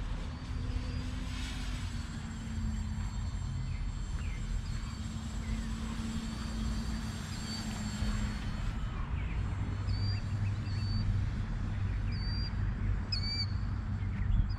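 Small RC model plane's motor and propeller humming as it flies, its pitch dropping about nine seconds in. Short bird chirps in the second half, over a low rumble.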